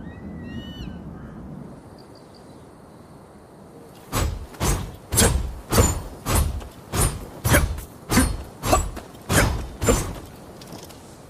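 A rapid series of about a dozen sword swishes through the air, roughly two a second, each a short rising-and-falling whoosh, starting a few seconds in and stopping about a second before the end.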